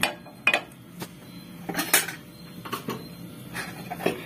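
Non-stick frying pan being set on a gas stove and shifted on its grate, with a series of sharp metal clanks and knocks. The loudest comes about two seconds in.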